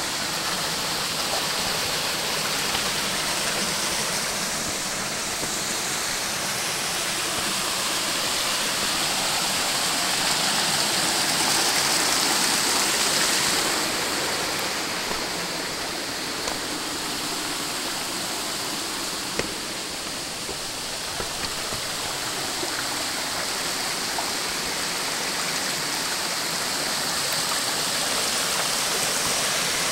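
Small mountain stream running over rocks: a steady rush of water that swells a little about a third of the way in.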